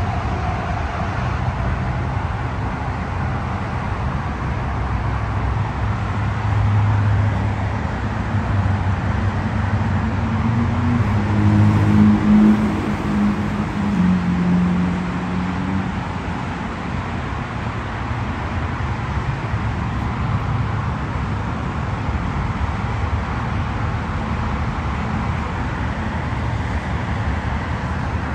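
Steady road traffic noise, with a vehicle's engine running close by that grows louder towards the middle and then fades away.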